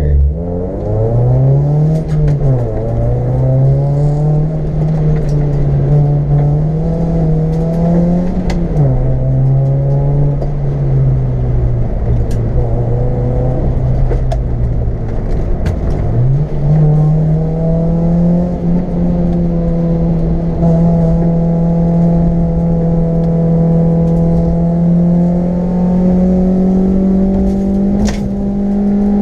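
Car engine heard from inside the cabin on a hill climb run, pulling hard under acceleration. Its pitch climbs and drops sharply about 2 s and 9 s in at gear changes, sags as the car slows around 16 s in, then rises again and holds high revs, creeping upward, for the last dozen seconds.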